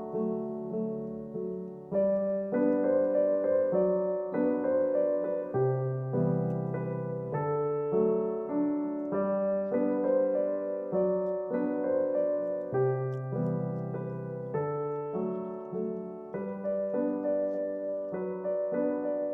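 Background music: a gentle piano melody over repeating chords.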